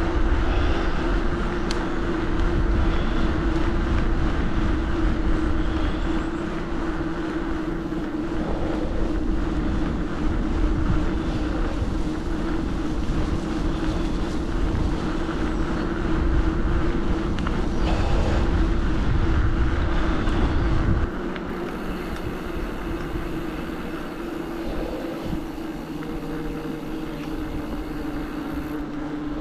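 Wind buffeting the microphone and tyre noise while riding along a paved path, with a steady hum underneath. The low wind rumble drops away suddenly about three-quarters of the way through.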